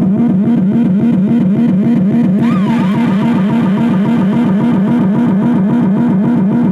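Ekoplasm DIY dub siren synth (555-timer oscillators into a delay/reverb section) playing through a small portable speaker: a low electronic tone pulsing several times a second, joined about two and a half seconds in by a higher tone warbling rapidly up and down.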